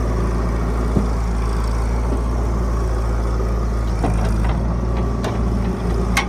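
Heavy diesel machinery engine running steadily at a constant speed, with a sharp knock about a second in and another near the end.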